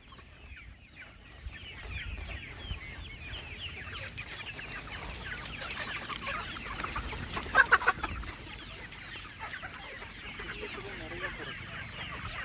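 A flock of country chickens, Siruvidai and Aseel-cross birds, clucking continuously in many short overlapping calls. A brief louder outburst comes about seven and a half seconds in.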